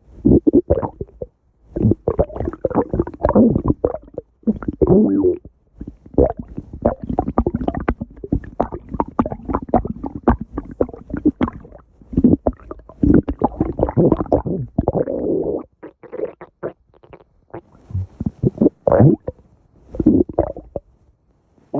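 A stomach growling: gurgling rumbles in irregular bursts, broken by short pauses.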